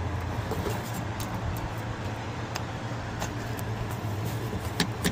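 Light plastic clicks and knocks as the old cabin air filter is handled and drawn out of its plastic housing behind the glove box, over a steady low hum.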